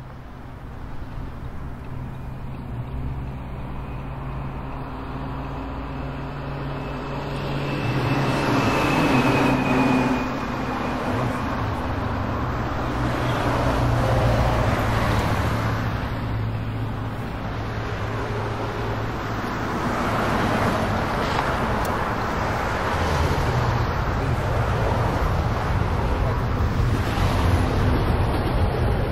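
Car engine and tyre noise heard from inside the cabin, a steady low rumble that grows louder over the first several seconds as the car pulls away from a stop, then carries on at a fairly even level while driving in city traffic.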